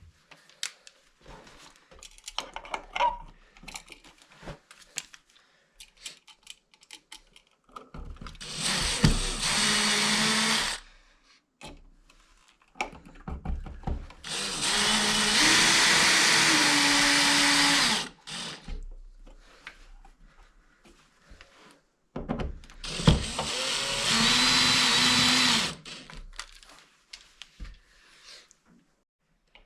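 Power drill driving screws in three runs of a few seconds each, the motor's pitch stepping up partway through the longest middle run, as a light switch is fastened back into its wall box. Light clicks and handling noise between the runs.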